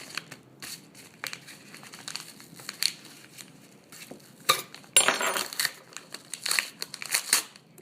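Packaging crinkling and crackling as a small box is opened by hand, with louder ripping crackles about halfway through.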